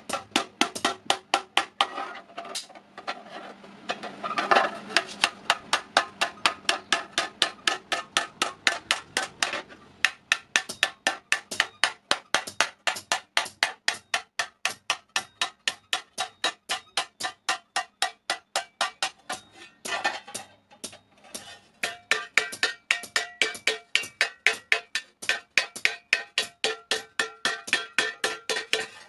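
Hand hammer striking a sheet-iron thali plate that rests on a wooden block, with rapid, evenly spaced blows about four a second, each with a short metallic ring. The blows are dishing the flat iron disc into a plate.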